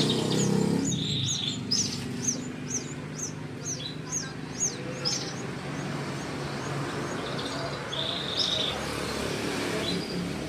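Canary chicks begging to be hand-fed: a rapid run of short, high, downward-sliding cheeps, about three a second, thinning out to a few scattered calls about halfway through, over a steady low background noise.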